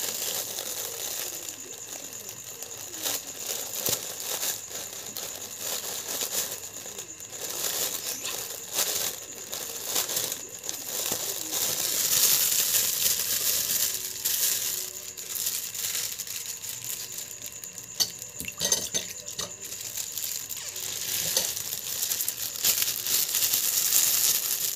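Clear plastic bag of iced fruit drink crinkling and rustling as it is handled and untied by hand, with many scattered sharp clicks.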